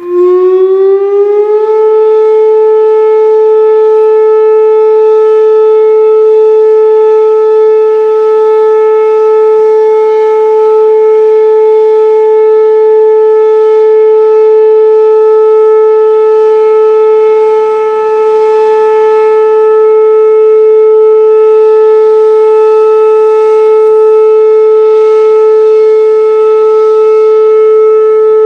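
Whelen WPS 2810 electronic outdoor warning siren starting up and sounding its steady alert tone, very loud. The pitch rises for about the first two seconds, then holds at one steady, rich tone, dipping briefly in loudness about two-thirds of the way through.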